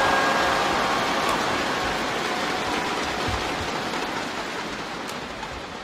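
Arena crowd applauding and cheering after a point, a dense wash of noise that is loudest at first and slowly dies away.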